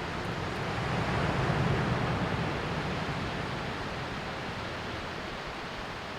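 Sea waves washing onto the shore: one wave swells about a second in and then slowly recedes, over a steady background of surf.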